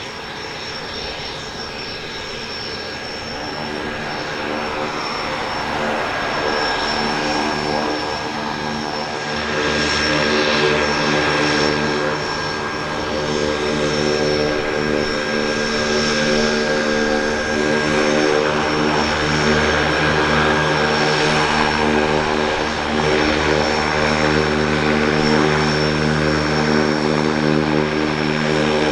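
Quest Kodiak 100 amphibian's PT6A turboprop engine and propeller running at taxi power: a steady propeller drone with a high turbine whine, growing louder through the first half. About nine seconds in the sound changes and gains a deeper rumble as the amphibian taxis out of the water up the ramp.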